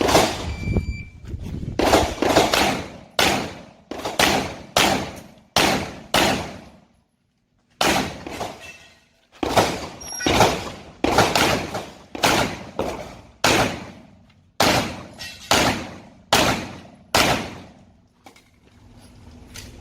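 Glock 34 Gen4 9mm pistol being fired in rapid strings of single shots, roughly two a second, each shot trailing off in an echo, with a short pause partway through.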